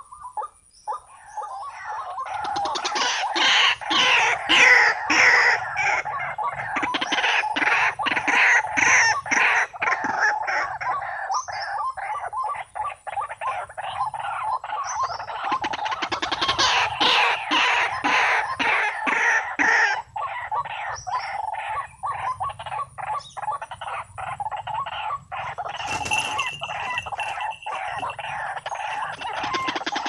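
White-breasted waterhen calling without a break, a loud, fast run of harsh repeated notes that starts about a second in.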